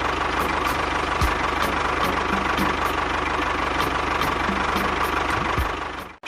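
Small engine running steadily with a fast knocking rhythm, cutting off abruptly near the end.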